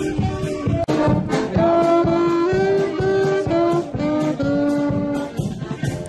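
Brass band music: a brass melody moving note to note over a steady beat.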